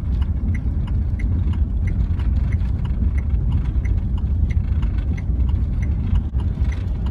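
Cargo van driving on an ice-packed, compacted-snow road: a steady low rumble of engine and tyres on the rough ice. Light ticks repeat evenly over it, about one every 0.6 seconds.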